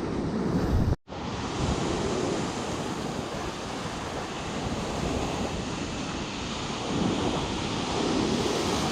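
Waves breaking on the shore, with strong wind buffeting the microphone. The sound cuts out for an instant about a second in.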